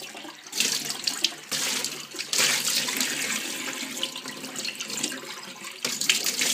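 Kitchen tap running into a food bowl held under it in a stainless steel sink, the water splashing and sloshing unevenly as the bowl is tilted and turned to rinse it.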